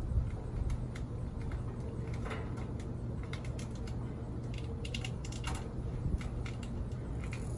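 Irregular light clicks and small rattles of hands working on parts inside a stainless-steel Weber Genesis II LX gas grill during assembly, over a steady low rumble.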